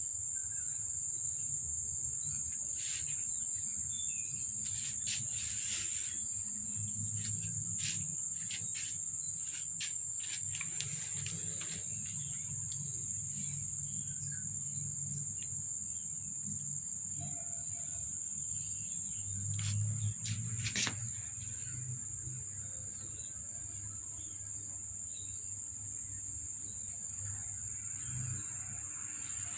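An insect, such as a cricket or cicada, trilling steadily on one high pitch, with a low hum beneath and a few faint scattered clicks.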